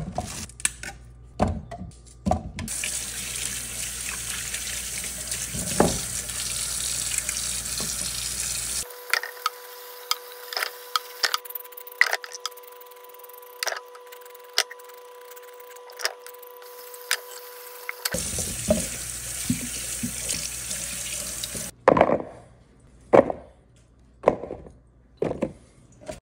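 A kitchen faucet runs into a stainless steel sink while carrots are rinsed. In the middle comes a stretch of short, repeated knife scrapes as the carrots are peeled, over a faint steady hum. The water then runs again, and a few knocks follow near the end.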